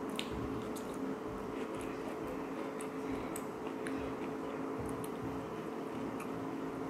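Chewing and squelching of someone eating intestine meat, with small wet clicks, over a steady hum.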